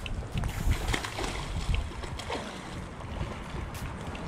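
Wind buffeting the microphone over small waves lapping at a rocky shoreline, with a few short knocks.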